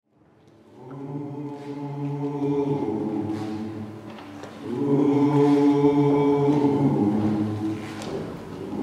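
A choir singing in harmony, two long held phrases, fading in from silence in the first second.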